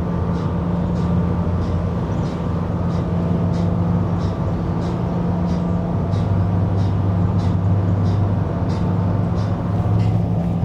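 A steady low engine hum, such as a vehicle running, with a faint regular tick about twice a second.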